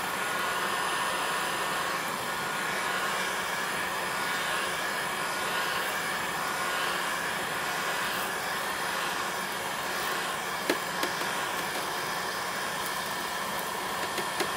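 Hand-held Black & Decker heat gun running steadily on a turned-down setting: a constant rush of blown air with a faint whine. A few light ticks in the last few seconds.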